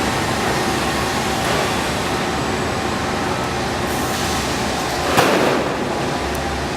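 Steady construction-site machinery noise, a dense mechanical rumble, with one sharp knock about five seconds in.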